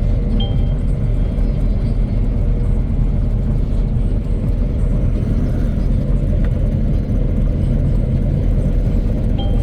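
Engine of a mowing machine running steadily while mowing grass, a low, even drone. A short high chirp sounds about half a second in and again near the end.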